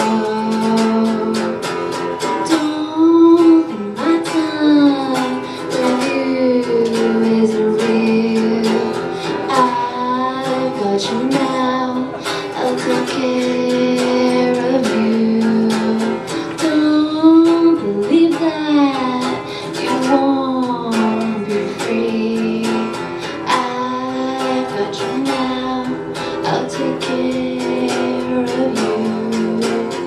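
A live song: a guitar strummed in a steady rhythm with a voice singing the melody over it.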